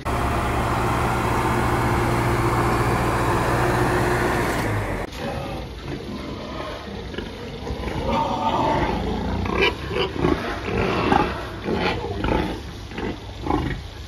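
A heavy machine's engine running steadily, heard inside its cab, which stops suddenly about five seconds in. Then a pen of pigs grunting and squealing in irregular loud calls.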